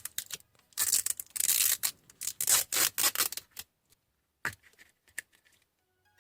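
Plastic packaging crinkling and tearing in quick bursts for a few seconds, then a single sharp click.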